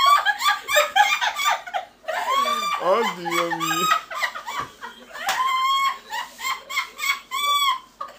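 A woman laughing in rapid, high-pitched squealing bursts, the pitch sliding up on many of them, an unusual laugh. A lower voice joins briefly about three seconds in.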